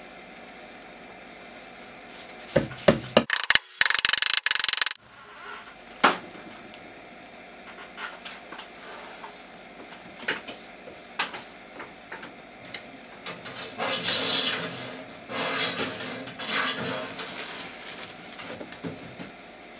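Electrical cable being handled against a wooden ceiling joist and fastened with wire staples: sharp clicks and knocks, a loud clattering stretch in the first few seconds that stops abruptly, then scattered taps and a spell of scraping and rubbing.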